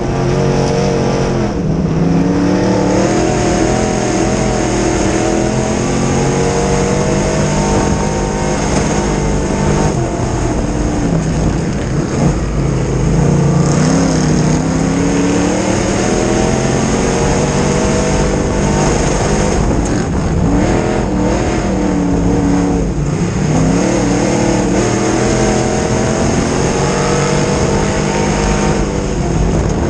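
Crate-engine V8 of a dirt modified race car at racing speed, heard from inside the cockpit. The engine note drops as the driver lifts into the turns and climbs again down the straights, about every ten seconds.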